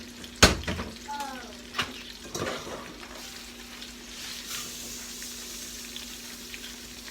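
Chicken frying in a skillet, a steady sizzle that swells about four seconds in. Near the start there is a loud knock, then a couple of lighter clinks.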